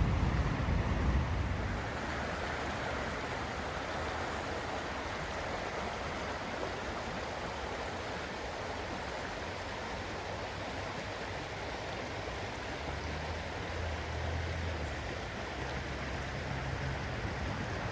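Fast-flowing river water rushing steadily, with wind buffeting the microphone in the first couple of seconds.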